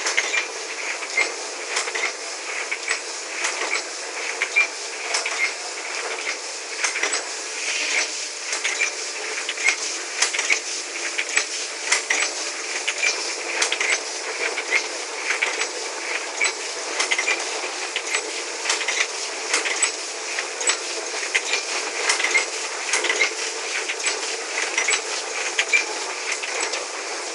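Jiguo MY-1080E automatic die-cutting machine running, cutting gray board sheets: a steady mechanical clatter with frequent sharp clicks.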